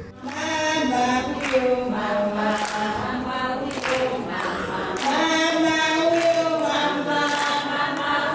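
A choir singing together, holding long notes.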